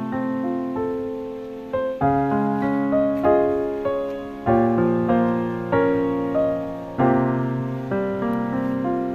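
Background music: a slow piano piece. Chords are struck and left to fade, a new one every two seconds or so, with a simple melody above them.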